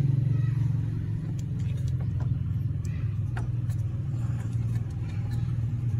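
SYM Bonus 110's four-stroke single-cylinder engine idling steadily, freshly filled with 10W-40 oil, with a few faint clicks as the oil filler cap is handled.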